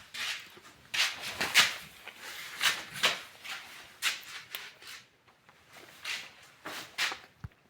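Close-up chewing of a mouthful of boiled eggs: irregular wet, noisy mouth sounds about every half second to second, with breaths between.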